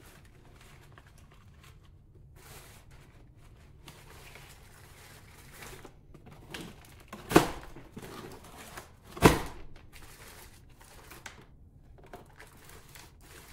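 Hands spreading and rubbing loose potting mix over a plastic seed-starting plug tray, a soft, irregular crumbly rustle. Two sharp knocks about two seconds apart, near the middle, are the loudest sounds.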